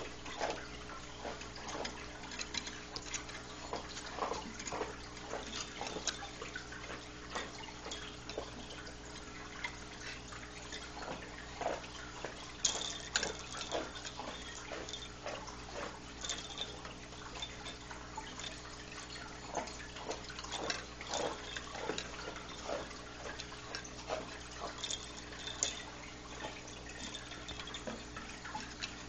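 Irregular light taps and clicks of a kitten batting at a ball-on-a-spring cat toy, over a steady low hum.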